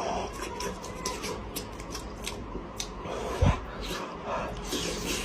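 Close-up eating sounds of a person chewing and tearing meat from a cooked animal head, with scattered wet clicks and smacks and a single dull thump about three and a half seconds in.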